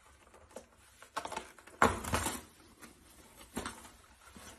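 Toilet paper rustling in a few irregular bursts as a cat paws and pulls sheets off the roll. The loudest stretch comes about two seconds in.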